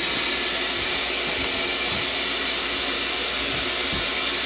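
Steady hiss at an even level, with a few faint soft thumps.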